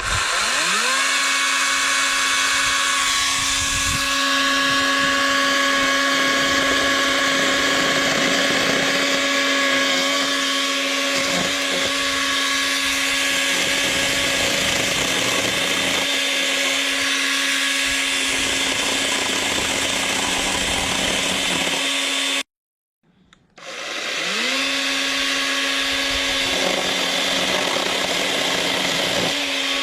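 Greenworks 80V brushless cordless chainsaw spinning up and running at full speed with a steady electric whine. It cuts off suddenly about 22 seconds in, spins up again a second later, and winds down near the end.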